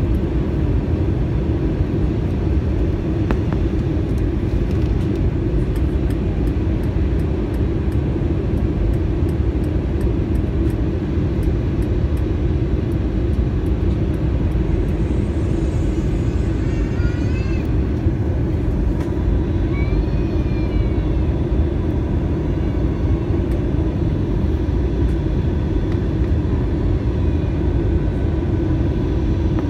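Steady cabin noise of a passenger jet descending toward landing: an even, loud rumble of engines and airflow heard from inside the cabin.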